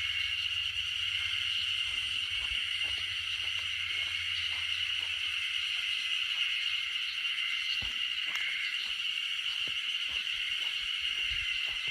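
A chorus of Japanese spring cicadas (haruzemi) singing as a continuous high, steady drone.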